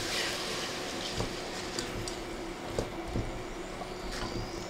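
Steady hum and hiss of a pot of lentils and tomatoes cooking on a portable electric hob, with a few light taps.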